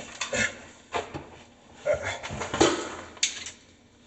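Handling noise under a kitchen sink: about five separate sharp knocks and clatters of tools and parts over four seconds.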